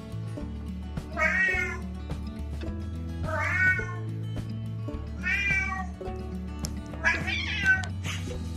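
House cat meowing four times, about two seconds apart, calling out for owners it cannot find.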